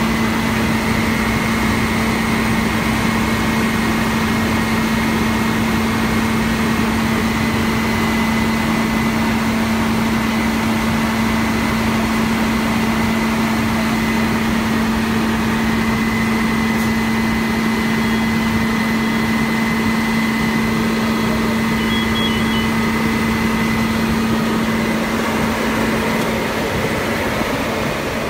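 Fire engine running steadily while parked, its engine driving the pump that feeds the hose lines: a loud, even drone with a steady low hum and a fainter high whine.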